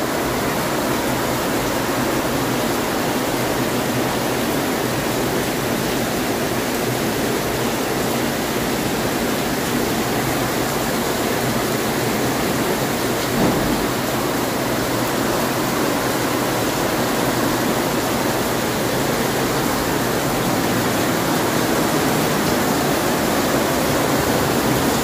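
Heavy rain pouring down in a steady, dense hiss, with water streaming off the edge of a fabric awning.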